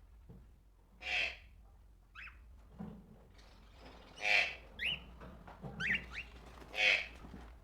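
Tropical birds calling: three loud calls spaced two to three seconds apart, with short, quick sweeping chirps from other birds in between.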